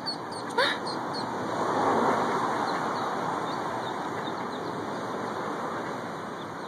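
A vehicle driving past, a rushing noise that swells about two seconds in and slowly fades. A few high peeps from mallard ducklings come near the start.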